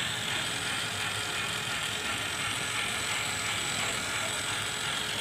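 Small DC gear motor in a homemade cardboard RC truck, running steadily with an even whir.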